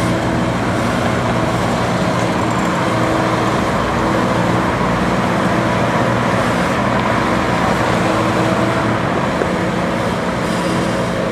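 Madvac 101-D sidewalk litter vacuum running, its engine and suction fan giving a loud, steady drone with a constant hum.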